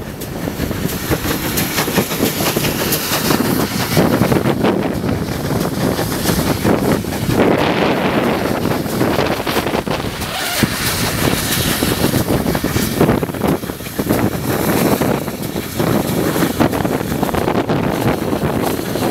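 Heavy wind buffeting the microphone as it is held out of a moving train, over the train's steady running noise.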